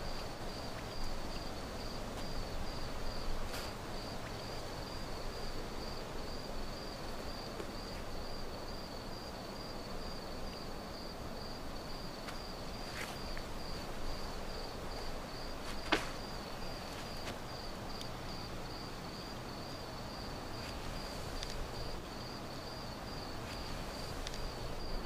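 Cricket chirping steadily at night, a high even pulse about two to three times a second, over a soft ambient hiss. A few faint clicks, one sharper click about two-thirds of the way through.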